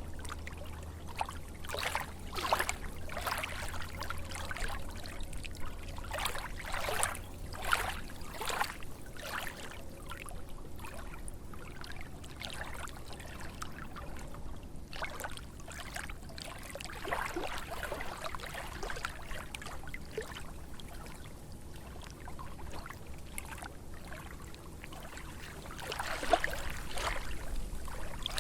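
Small lake waves lapping and splashing in irregular small slaps every second or so, with a busier run of splashes near the end. The water is fairly calm.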